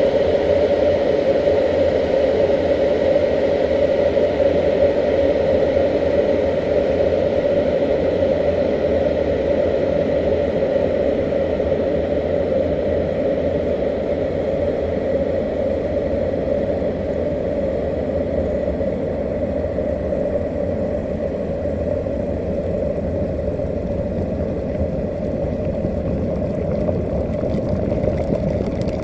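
Water at a rolling boil in a kettle, bubbling steadily with a continuous low rumble.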